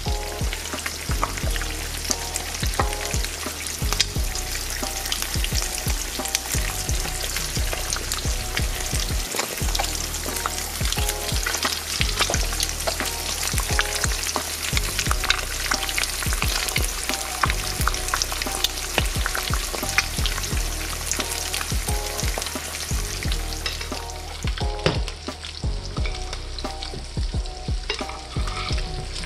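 Two eggs frying in hot melted butter in a nonstick skillet: a steady sizzle with many sharp crackling pops throughout.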